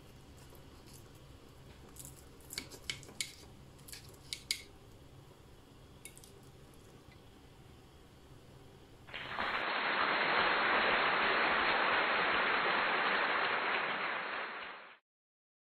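A fork cutting into a slice of lasagna and clicking against the plate several times, between about two and four and a half seconds in. About nine seconds in, a loud, steady hiss starts and runs for about six seconds before cutting off suddenly.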